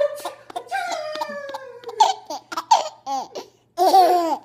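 Six-month-old baby laughing: a long squeal that slides down in pitch, then a run of short laughs and a loud laugh near the end.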